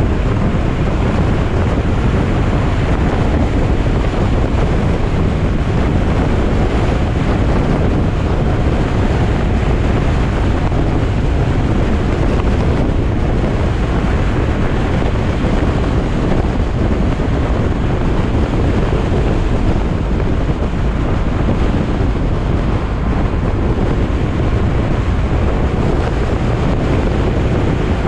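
Steady rush of wind over the microphone, mixed with tyre and road noise and the running engine of a Yamaha XMAX scooter cruising at a constant speed.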